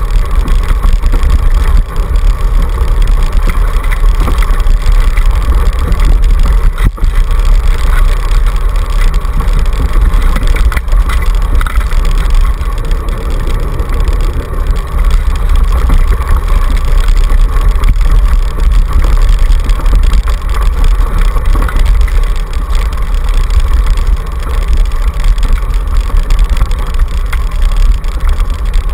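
Steady rolling rumble and rattle of a dog scooter running fast over a rough dirt trail, carried through the camera on its handlebar, with a sharp knock about seven seconds in from a bump.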